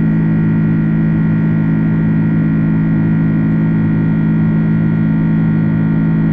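Airbus A330 engines heard from inside the cabin: a steady, loud drone with a strong low hum and a fainter high whine.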